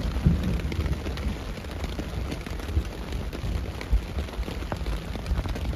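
A long roll of thunder rumbling under heavy rain drumming on the fabric of a Seek Outside Cimarron Light pyramid tent, heard from inside the tent.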